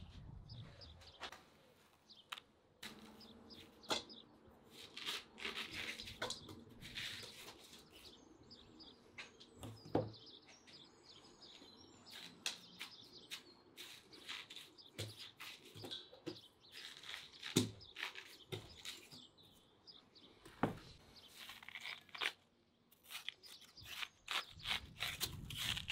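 Birds chirping, with many short knocks, clicks and crunching sounds scattered through it.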